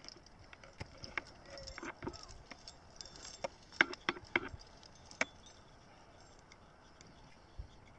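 Climbing gear clinking and boots scuffing on granite as climbers move along a rock ridge: scattered light clicks and knocks, thinning out after about five seconds.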